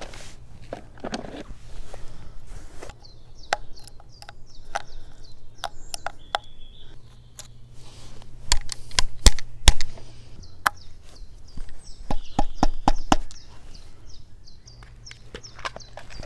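Sharp clicks and knocks of small hand tools being worked against a camera body's tripod-mount thread and picked out of a plastic toolbox, loudest in a quick cluster about halfway through. A small bird chirps in quick runs in the background.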